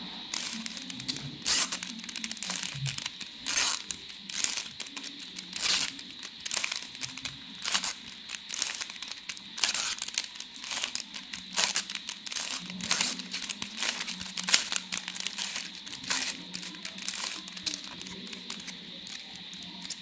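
Plastic 3x3 Rubik's cube being turned by hand: quick irregular clicks and clacks as the layers snap round, several a second.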